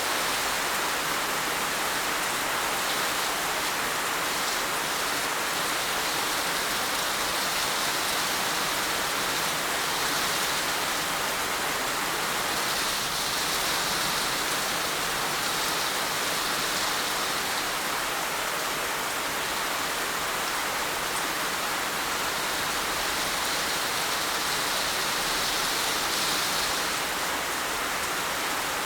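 Heavy rain falling steadily, a dense even hiss without single drops standing out, swelling slightly now and then.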